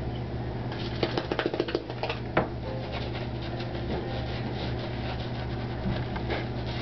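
Shaving brush working lather onto the face, a soft rubbing and scratching, over a steady low hum. About a second in comes a quick run of clicks and taps, then one sharp tap.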